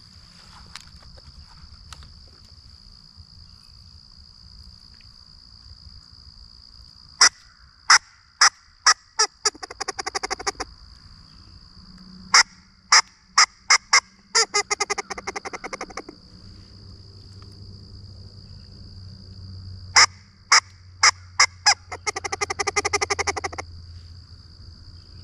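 Bayou Legacy squirrel call blown in three series, each a handful of sharp barks about half a second apart that run into a fast chatter, imitating a squirrel's bark to draw out and move squirrels.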